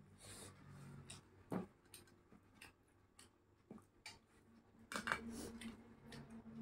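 Faint eating sounds of rice being eaten by hand from a steel plate: a handful of soft clicks and smacks as fingers mix the food on the plate and she chews, the loudest about five seconds in.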